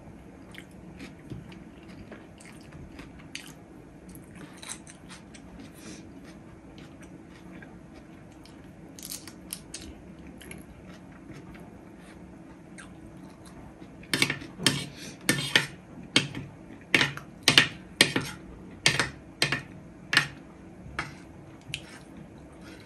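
Close-up mouth sounds of a person eating chicken biryani: soft chewing, then in the second half a run of loud, sharp crunches at about two a second, which stops shortly before the end.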